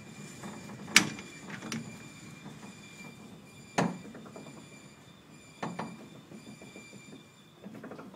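Vintage tram (Blackpool Standard car) creeping slowly forward, its running gear giving a series of sharp clunks roughly every two seconds, the loudest about a second in. A low rumble and a faint steady high whine run underneath.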